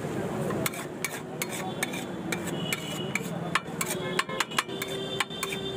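Steel spatula scraping and clinking against a flat griddle (tawa) as a thick chaat mixture is stirred and mashed, with quick, irregular metallic taps starting about a second in.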